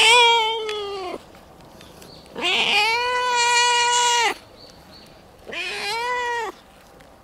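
Black-and-white cat meowing loudly and piercingly while being stroked: three long, drawn-out calls, each rising at the onset, holding a level pitch and dropping away at the end, the last one the shortest. The cries are happy calls of delight at being touched.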